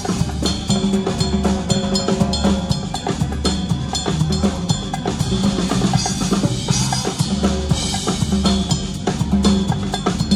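Live band music with a fast, steady drum beat, hand drums struck along with it, over a sustained bass line.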